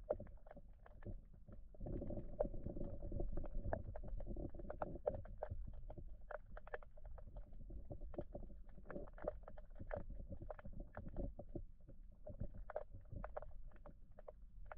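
River water heard underwater through a submerged camera housing: a muffled, steady low rumble with many small irregular clicks and ticks.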